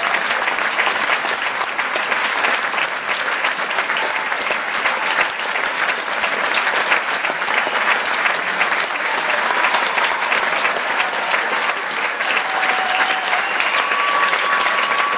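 Concert-hall audience applauding steadily, a dense even clapping.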